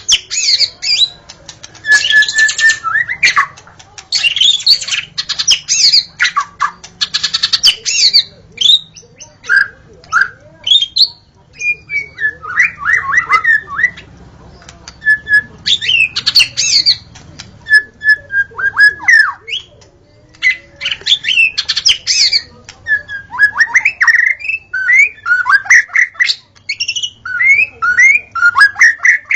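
Wild white-rumped shama singing: phrases of rapid sweeping whistles, chattering notes and short held whistles, each a second or two long with brief pauses between.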